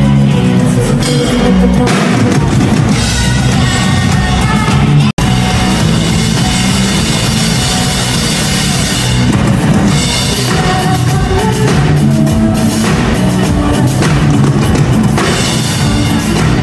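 Live pop-rock band playing, with drum kit. The sound drops out for an instant about five seconds in.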